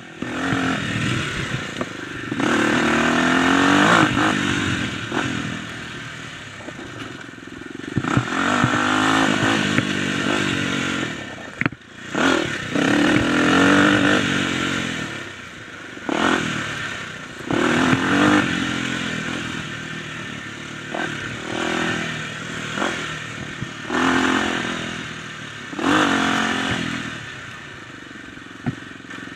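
Dirt bike engine revving up and falling off again and again as it is ridden over rough ground, with a few sharp knocks from the bike over the bumps.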